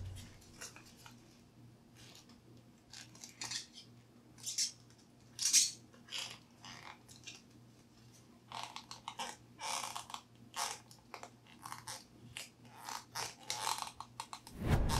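Intermittent crinkling, rustling and light clicks of hands handling small parts and mini adhesive mounting strips. The sounds are sparse at first and come thicker in the second half, over a faint steady hum.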